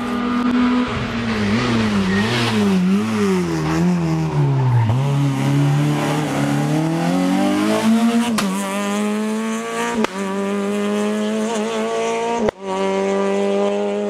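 Small hatchback rally car's engine at full stage pace: the engine note wavers up and down and sinks over the first few seconds, climbs again, then holds a steady high note as the car pulls away, broken by three short sharp interruptions.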